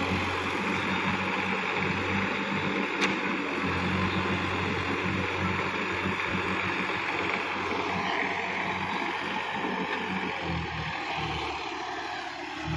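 Sonalika DI-50 RX tractor's diesel engine running steadily under load while tilling a flooded, muddy paddy field. A single sharp click sounds about three seconds in.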